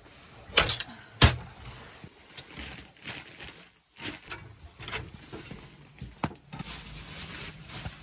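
Kindling and paper being handled and pushed into a small stainless steel wood stove as it is lit, with scattered sharp knocks and light metallic clinks against the stove.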